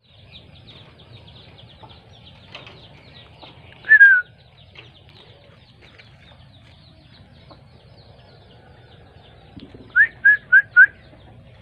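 Loud whistled notes: one falling note about four seconds in, then four short rising notes in quick succession near the end, over faint chirping of small birds.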